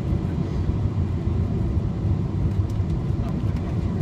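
Steady low rumble of a Boeing 747-400's engines and rushing airflow, heard from inside the passenger cabin.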